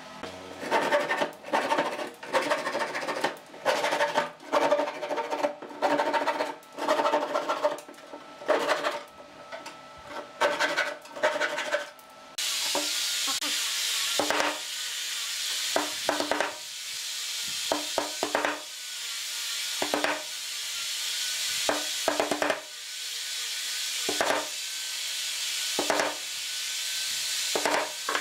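Wood knocking on wood as dowels are driven into holes in a wooden block: a run of sharp knocks with a short ring, about two a second. About twelve seconds in, this gives way to a steady hiss with scattered lighter knocks.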